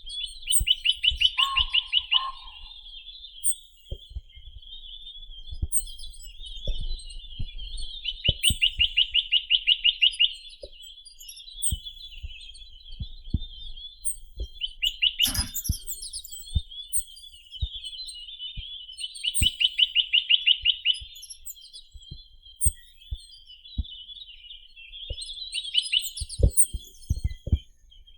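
Chinese nuthatch (Sitta villosa) singing: a fast, even trill of about two seconds, repeated four times, with steady high twittering between the trills.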